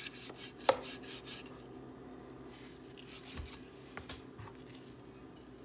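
A large kitchen knife cutting raw chicken in a bowl, with a few sharp clicks and knocks of the blade, the loudest just under a second in and another about four seconds in.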